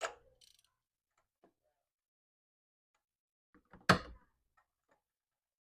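Tools and parts being handled during spark plug and ignition coil removal: a sharp click at the start, a louder knock about four seconds in, and a few faint ticks.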